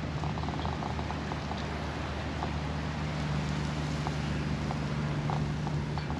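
Steady low engine hum under a constant rushing noise, with a few faint clicks.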